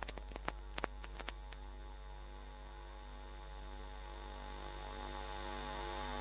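Steady electrical mains hum with a buzz of evenly spaced overtones. Several sharp crackling clicks come in the first second and a half, then the hum goes on unbroken, slowly growing louder.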